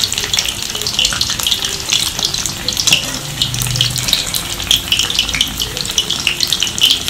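Besan-battered bread pakoda sandwiches deep-frying in hot oil in an iron kadhai, crackling and sizzling steadily as they are turned with a spatula.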